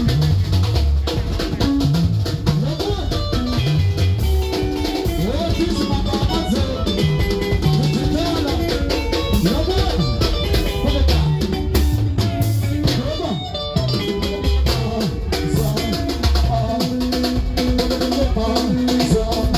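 Live sungura band playing: drum kit keeping a steady beat under bass and interlocking electric guitar lines.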